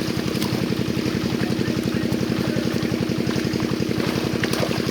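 A small engine running steadily with a fast, even thudding beat.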